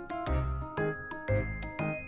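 Background music: a light melodic tune over a steady bass beat that returns about once a second.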